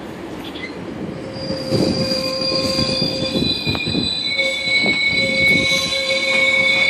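GO Transit bilevel commuter train pulling into the station, its wheels squealing on the rails in several high, steady tones that come in about a second in and grow louder, over the low rumble of the passing cars.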